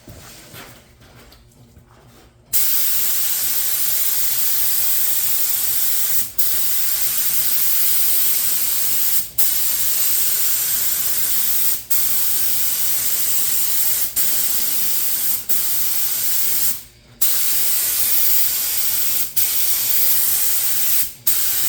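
HVLP paint spray gun hissing as it sprays paint. It starts about two and a half seconds in and runs in passes of a few seconds each, with the trigger let off briefly between them.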